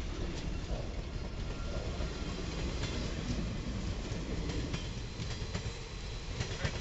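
Freight train cars, flatcars and a caboose, rolling past. Their steel wheels keep up a steady rumble on the rails, with scattered sharp clicks over the rail joints.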